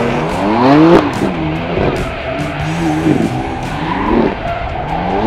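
BMW drifting on the throttle: the engine revs climb and drop again and again, loudest about a second in and again around four seconds, over the squeal of the sliding rear tyres.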